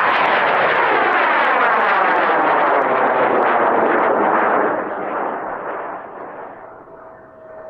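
Large 98 mm high-power research rocket motor burning at liftoff: a loud, crackling roar with a sweeping, falling rush as the rocket climbs. It drops off about five seconds in and fades as the rocket goes up and away.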